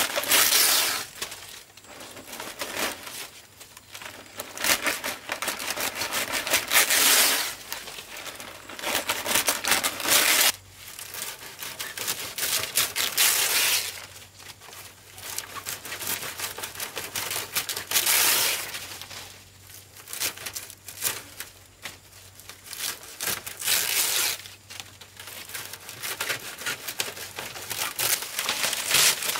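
Long green palm fronds rustling and crackling as they are handled and laid over a roof frame for thatching, in irregular bursts a few seconds apart.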